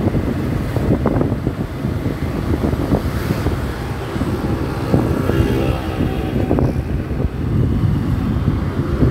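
Wind buffeting a helmet-mounted phone microphone on a moving motorcycle, over the steady running of the motorcycle's engine.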